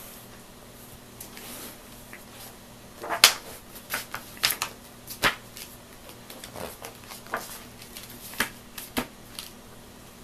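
A picture book being opened and its paper pages handled: scattered rustles and crisp clicks at an uneven pace, the loudest a little past three seconds in.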